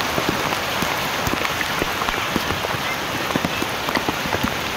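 Heavy typhoon rain pouring down steadily, with many separate drops hitting close by.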